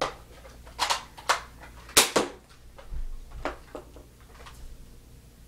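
Irregular sharp clacks and knocks, about eight in a few seconds, the loudest about two seconds in.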